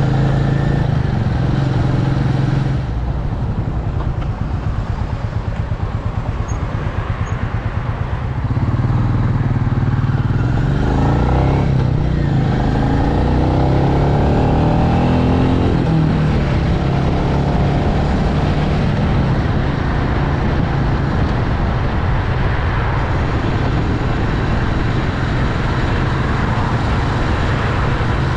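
Royal Enfield Meteor 350's single-cylinder engine under way. About three seconds in the throttle eases off and the engine runs softer and pulsing for a few seconds. It then pulls hard again, rising in pitch as the bike accelerates, and settles to a steady cruise.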